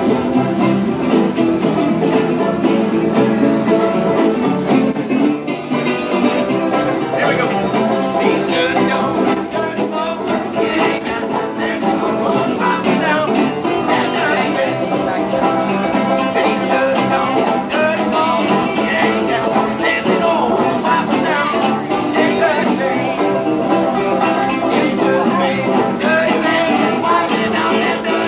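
Acoustic street band playing a bluegrass-style tune on two banjos and two guitars, steady and continuous.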